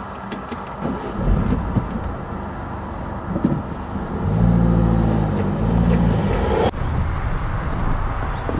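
A car drives over the level crossing as the barriers lift, its engine swelling loudly as it passes close by. A few light clicks come at first, and the sound cuts off abruptly about two-thirds of the way through.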